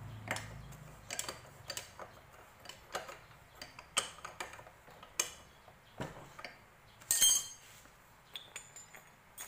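Irregular metallic clinks and taps of a hand tool working on a motorcycle carburettor and intake fittings, with a louder metallic rattle about seven seconds in.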